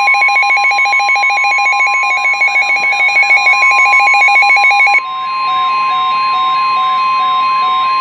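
Midland NOAA weather radio sounding its alert: a fast warbling siren over the steady 1050 Hz weather-radio warning alarm tone. About five seconds in, the warble gives way to a slower beeping while the steady tone continues. The alarm announces an incoming flood warning.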